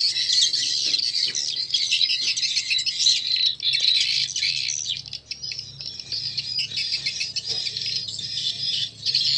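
Recorded swiftlet calls played back through two horn tweeters on a swiftlet-house amplifier: a dense, continuous chatter of high chirps and twitters, with the call sound and the roosting sound playing together on the two stereo channels. A low hum sits underneath, stronger from about halfway in.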